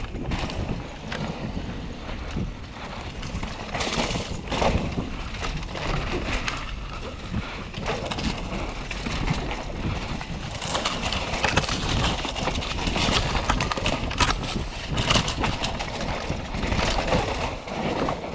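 Mountain bike rolling fast down a rough dirt trail: tyres on loose dirt, with frequent knocks and rattles of the bike over bumps and a constant low rumble of wind on the microphone.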